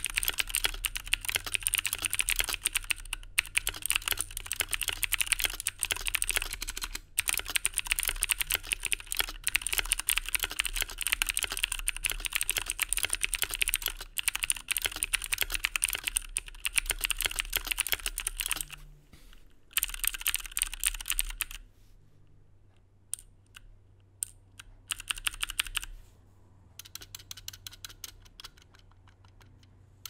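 Typing sound test on a Drevo Excalibur 75% aluminium-case mechanical keyboard with clicky Cherry MX Blue switches: a dense, fast run of sharp keystroke clicks. About 22 seconds in it drops to scattered single presses, then picks up again more lightly near the end.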